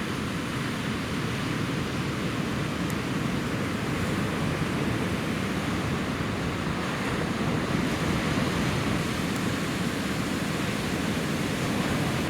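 Ocean waves breaking and washing in a steady rush of surf, with some wind on the microphone.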